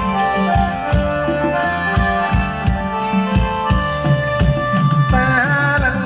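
Thai ramwong dance music from a live band: a steady drum beat under a keyboard melody, with a singer coming in near the end.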